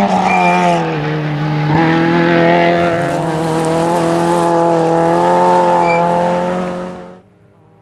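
Opel Corsa GSi rally car's four-cylinder engine running hard at high revs. Its pitch holds nearly steady apart from a brief drop about a second in, then the sound cuts off suddenly near the end.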